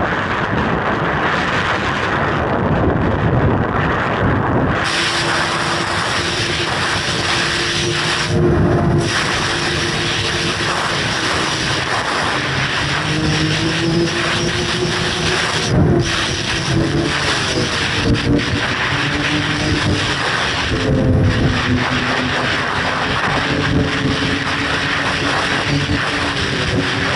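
Snowmobile engine running under way along a trail, its pitch rising and falling with the throttle, over steady track and wind noise.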